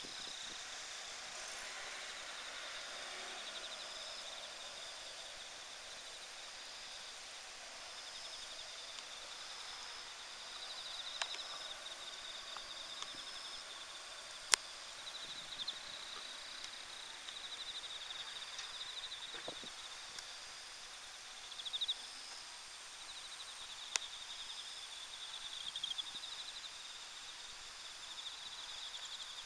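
Night insects, crickets, singing steadily in a high-pitched chorus: one song pulsing without a break, another in short repeated bursts just above it. A few sharp clicks break in, the loudest about halfway through and again near the end.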